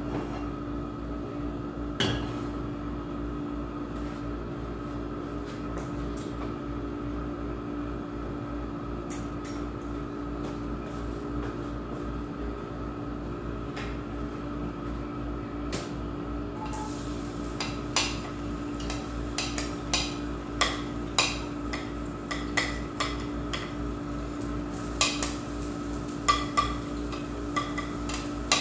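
Metal kitchen utensils clinking against a plate and pan: a single clink about two seconds in, then a quick string of sharp clinks and taps through the second half, over a steady background hum.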